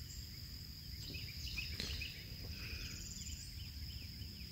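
Riverside ambience: a steady high insect drone with many short bird chirps and calls over it, including a brief rapid trill about three seconds in, and a low rumble underneath.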